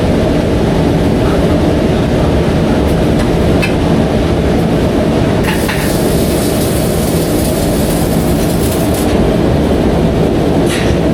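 Steady, loud drone of a moving vehicle: engine hum under heavy rumbling road and wind noise, with no change in pace.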